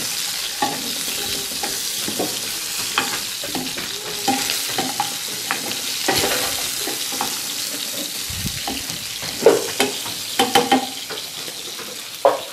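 Pork rib pieces sizzling steadily as they fry in oil and their own juices in a skillet, while a metal spoon stirs them and scrapes and clinks against the pan. A few sharper knocks come near the end.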